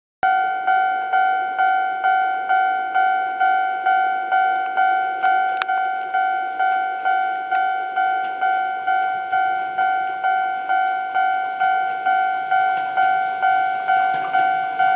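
Railway level crossing warning bell ringing: a run of sharp, evenly spaced dings at about two a second, starting suddenly just after the start. It is the signal that a train is approaching the crossing.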